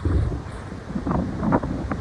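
Strong gusty wind buffeting the microphone in uneven rumbling pulses.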